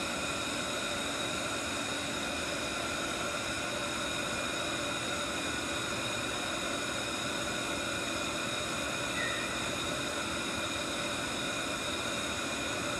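Steady hum and whir of running laboratory equipment, a constant noise with several steady whining tones that does not change.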